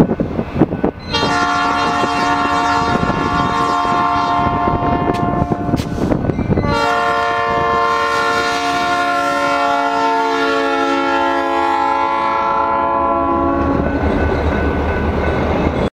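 Diesel locomotive air horn sounding a long, multi-note chord. The chord drops in pitch about six and a half seconds in as the locomotive passes close by, and the horn stops a couple of seconds before the end. Under it runs the diesel engine's rumble and the clatter of wheels on rail, which carries on after the horn stops.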